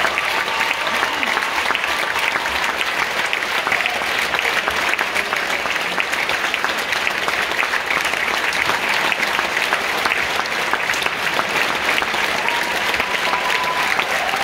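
Large audience applauding steadily, a dense, unbroken clatter of many hands clapping.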